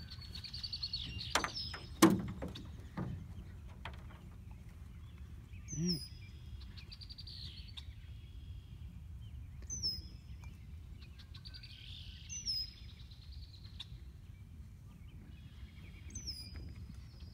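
Songbirds singing, one repeating a short high phrase that drops into a trill every few seconds. There are a few sharp knocks near the start, the loudest about two seconds in.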